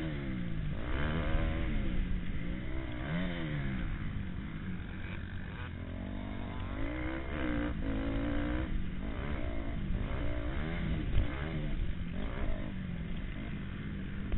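Motocross bike engine revving hard and dropping back again and again as the rider accelerates, shifts and slows on a dirt track, heard from the rider's own helmet. A single sharp knock about eleven seconds in.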